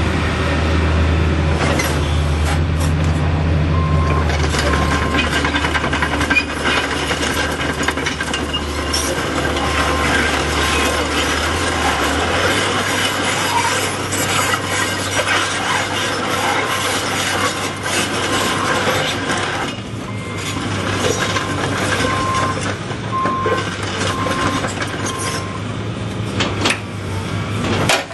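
John Deere 225C LC hydraulic excavator running, its diesel engine hum changing pitch about twelve seconds in, over steady scraping and clattering from the working machine. Runs of short high beeps come several times.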